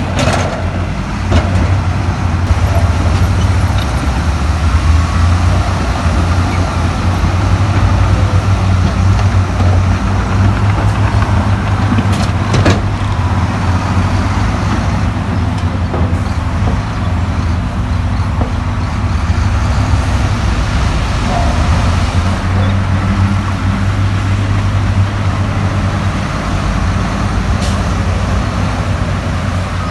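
Heavy diesel earthmoving machinery running steadily with a deep low drone. A single sharp knock comes about twelve seconds in.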